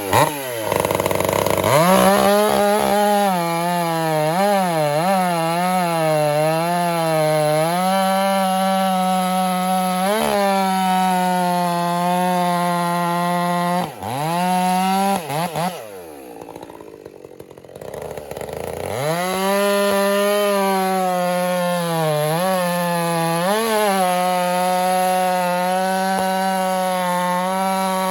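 Stihl MS 400 C two-stroke chainsaw running at full throttle while bucking red oak rounds, its pitch wavering as the chain loads and unloads in the cut. About halfway through it drops to idle for a few seconds, then revs back up and runs steady at high speed.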